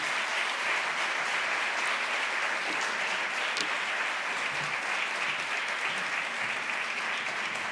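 Large audience in an auditorium applauding steadily, a sustained dense clapping that holds at a constant level.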